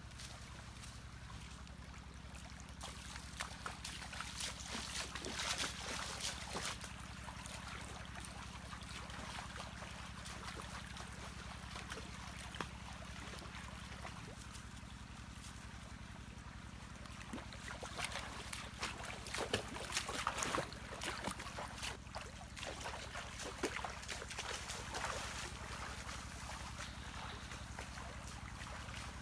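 Shallow stream running, with stretches of splashing as a person wades barefoot through the water.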